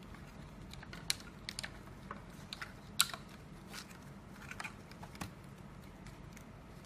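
Scattered light clicks and knocks of hands fitting a new battery pack and its plastic bracket into the opened shell of a two-wheel self-balancing scooter (hoverboard), the sharpest knock about three seconds in.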